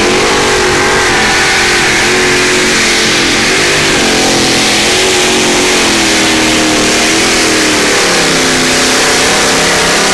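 Supercharged engine of a 950 kg modified mini pulling tractor running hard under load as it pulls the sled down the track. It is loud throughout, its pitch wavering up and down.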